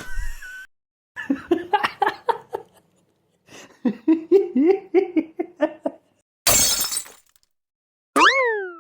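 A string of comedy sound effects: a burst of laughter, then a second laughing clip of rhythmic 'ha-ha' pulses, a short crash of breaking glass, and near the end a springy cartoon boing that swoops up and falls away in pitch.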